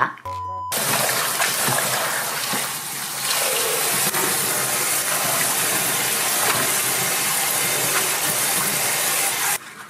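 Kitchen tap running hard into a basin of salted radish cubes as they are rinsed, a steady rush of splashing water. A short steady tone comes just before the water starts.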